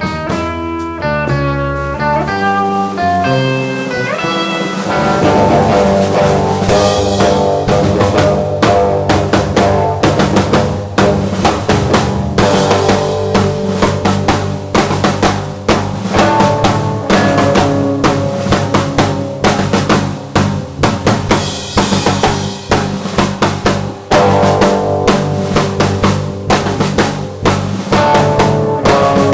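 Band music: a guitar plays on its own for the first few seconds, then a drum kit comes in with a steady beat under the guitar.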